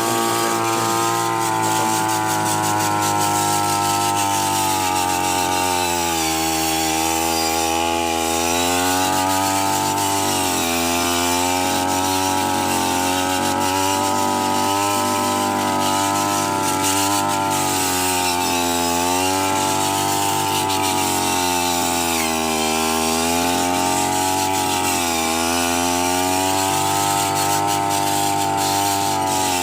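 Small engine of a brush cutter modified for cutting rice, running continuously at high speed; its pitch dips and recovers several times as the speed changes.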